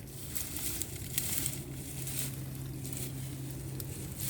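Wood-chip mulch and sweet potato vines rustling and crunching in uneven bursts as tubers are pulled up by hand, over a steady low hum.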